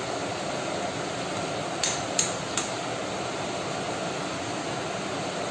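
An egg being cracked: three quick sharp taps of a metal spoon against the eggshell, a little under two seconds in, over a steady background hiss.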